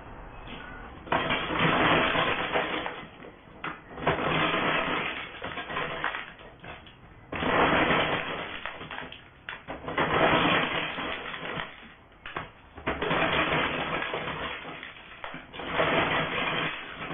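Hand-operated maize sheller stripping dried kernels off cobs: spells of dry rattling and scraping, each about two seconds long, with short pauses between, as the kernels are torn off and drop into the tray below.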